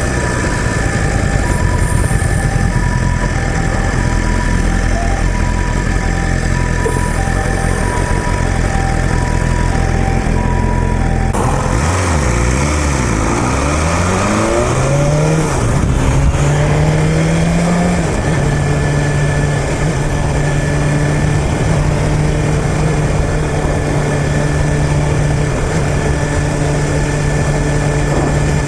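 An ambulance's two-tone hi-lo siren alternating about once a second over a BMW S1000RR's inline-four engine running at low revs. About eleven seconds in the siren is no longer heard and the engine revs up and down through several gear changes, then settles into a steady cruise.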